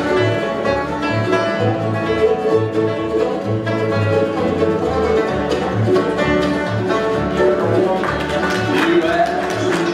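Bluegrass band playing an instrumental passage: banjo, acoustic guitars and mandolin picking together over an upright bass plucking a steady beat.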